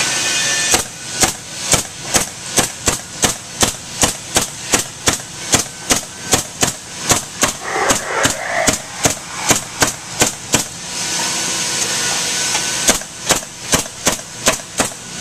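Handheld power fastening gun firing fasteners one after another, about three shots a second, into wooden swing back slats held in an assembly jig. It pauses for about two seconds, leaving a steady shop hum, then fires again near the end.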